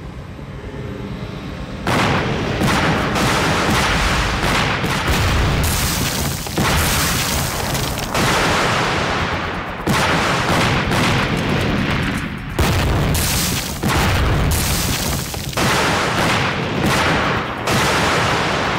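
A rapid series of loud explosions, about a dozen blasts starting some two seconds in and coming every second or so, each one sudden and trailing off in a rumble.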